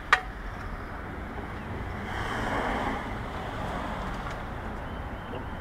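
A single sharp knock right at the start, then steady background noise that swells for about a second in the middle and settles again.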